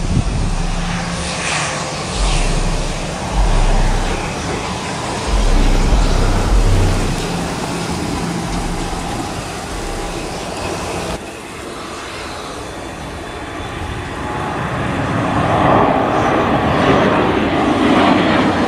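Turbofan engines of a twin rear-engined business jet at takeoff power, a steady jet roar through the takeoff roll, growing louder near the end as the jet climbs out overhead. Gusts of wind buffet the microphone in the first half.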